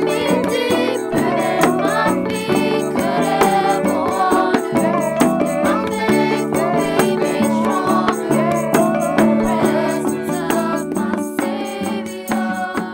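Background music: a song with a singing voice over a steady percussive beat, easing down near the end.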